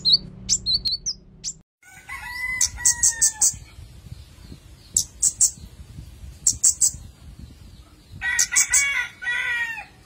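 A caged flowerpecker giving short, very high, sharp chips in quick clusters. Behind it a rooster crows twice, once about two seconds in and again near the end.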